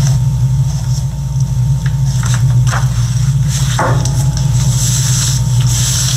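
A steady low hum runs underneath paper rustling and rubbing as flat hands smooth a glued white sheet down inside a folded construction-paper card.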